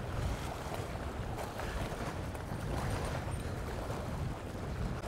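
Wind buffeting the camera's microphone: a steady low rumble with no distinct events.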